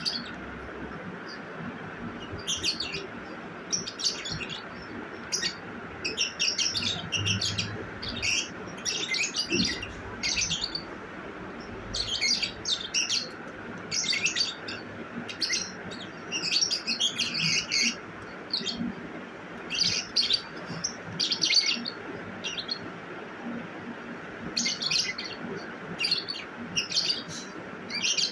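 Pet lovebird chirping in clusters of quick, high chirps, with short pauses between the clusters.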